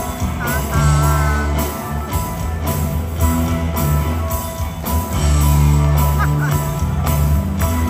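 Live rock band playing: a steady drum beat under sustained bass notes, with electric guitar playing wavering, bent lead notes about a second in.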